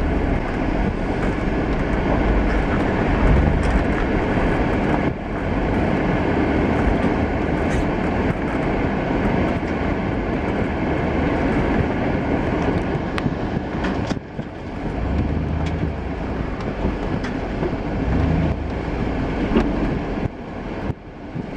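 Pickup truck running and rolling slowly over wet pavement, heard from inside the cab as a steady loud rumble that dips briefly about five and fourteen seconds in.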